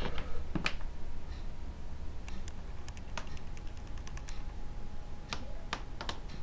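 Irregular light clicks: a quick run of them a couple of seconds in and a few more near the end, over a low steady rumble.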